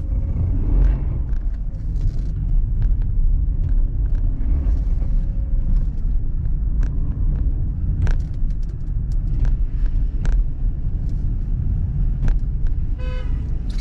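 Mercedes car driving on an icy, slushy road: a steady low rumble of tyres and engine, with scattered sharp clicks.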